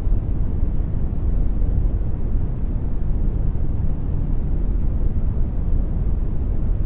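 Generated brown noise: a steady, deep rumbling hiss with its energy weighted toward the low end, unchanging throughout.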